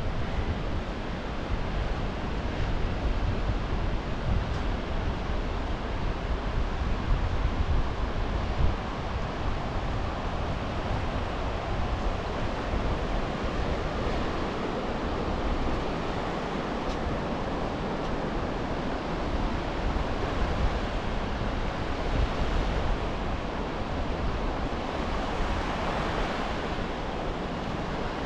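Ocean waves breaking and washing up a beach: a steady surf rush that swells near the end, with a low wind rumble on the microphone through the first third.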